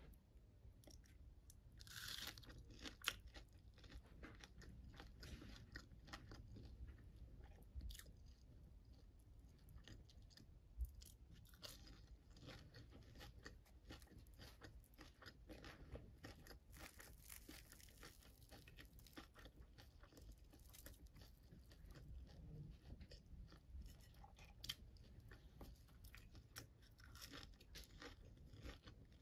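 Faint crackling and crunching of crisp fried lentil fritters (Newari bara) being torn apart by hand: many small sharp crackles, with a louder crackle about two seconds in.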